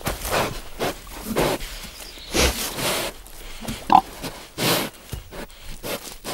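Truffle pig rooting in the forest floor with its snout, making an irregular run of short snuffles and grunts as it smells for black truffles.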